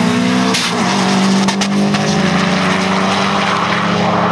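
Subaru Impreza's flat-four engine accelerating hard down the drag strip, its note rising in pitch up to a brief break about half a second in and then running on at a steadier pitch. A steady low engine drone lies under it throughout.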